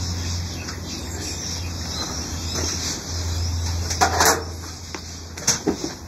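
A steady low hum, with a short burst of clatter from hands handling the wiring about four seconds in and a few small knocks about a second and a half later.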